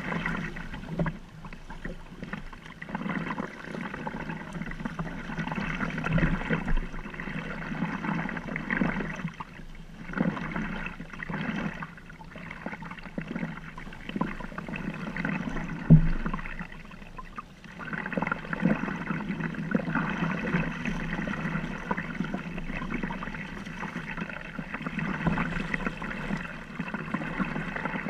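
Water sloshing and splashing around a sea kayak as it is paddled, swelling and fading irregularly, with one sharp knock a little past halfway.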